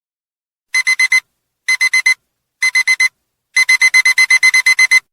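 Digital alarm beeping as a countdown timer hits zero: three groups of four quick, high-pitched beeps about a second apart, then a faster unbroken run of beeps near the end.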